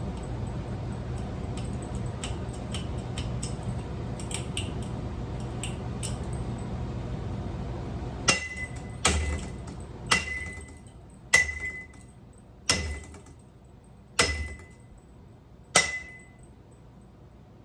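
A steady low hum with light clicking, which stops about eight seconds in. Then seven separate sharp blows strike the metal parts of a ceiling fan being smashed, each with a short ringing clang and a dull thud.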